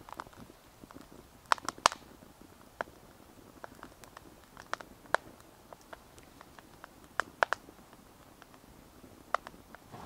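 Wood crackling as a Swedish fire torch log burns from the inside: scattered sharp pops and snaps, with a cluster of louder ones just under two seconds in and again about seven and a half seconds in.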